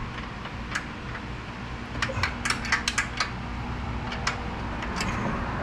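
Metal hand tools clicking and clinking against metal parts as a bolt is worked loose: a scattering of sharp, irregular clicks, several close together about two to three seconds in, over a steady low hum.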